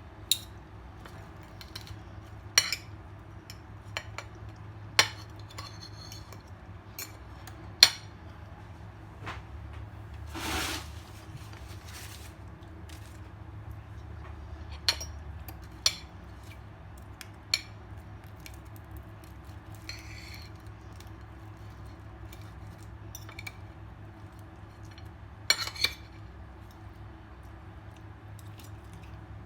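Cutlery and dishes clinking at a meal: about a dozen sharp, scattered clinks over a steady low hum, with a short hiss about ten seconds in.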